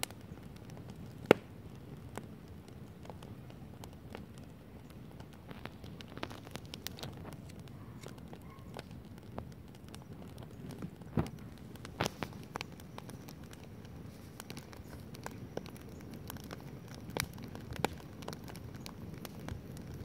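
Wood campfire burning: a low, steady rush of flames with irregular sharp crackles and pops from the burning firewood. The loudest pop comes about a second in.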